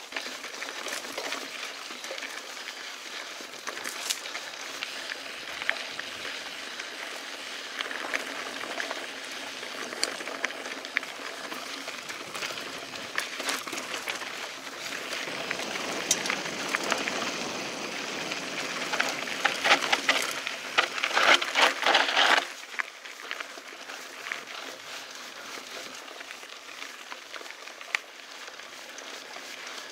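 Mountain bike tyres rolling and crunching over a dirt and gravel trail, with many clicks and knocks as the bike goes over rough ground. A louder, busier stretch in the last part cuts off suddenly about 22 seconds in.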